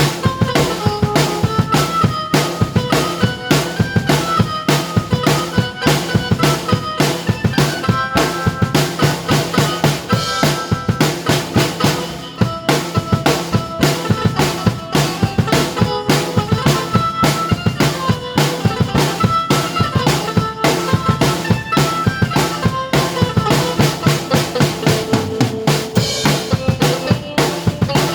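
A drum kit and a keyboard playing together: a dense, driving drum beat with bass drum and snare under a keyboard melody of held and moving notes, with a brief break in the drums about twelve seconds in.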